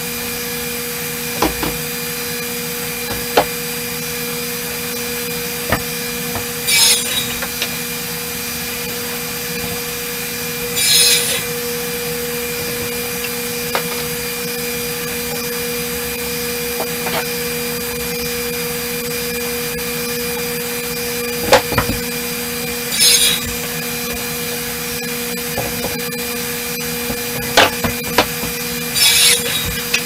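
Radial arm saw running with a steady machine hum, its blade crosscutting boards four times in short hissing rasps. Wooden boards knock and clatter as they are handled between cuts, with one loud knock near the middle.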